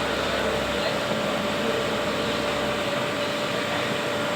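Steady machine noise: an even hiss with a faint constant whine, from a wire EDM machine running.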